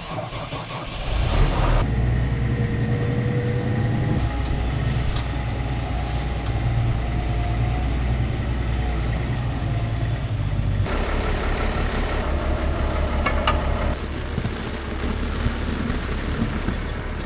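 Diesel engine of a New Holland tractor running steadily, its note picking up about a second in and changing about eleven seconds in.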